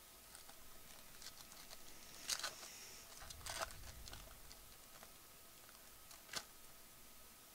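Foil wrapper of a baseball-card pack crinkling and tearing as it is opened by hand: faint rustling with a few louder crackles in the middle and one sharp crackle near the end.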